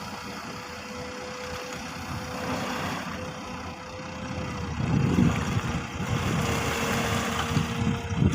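Diesel engine of an XCMG XE215 long-reach excavator running under work, with a thin steady whine above the engine note. The engine gets louder about five seconds in as the whine drops slightly in pitch.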